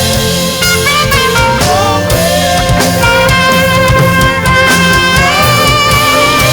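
Saxophone playing a gospel worship melody in long held notes, some with vibrato, over a live band with drums and bass.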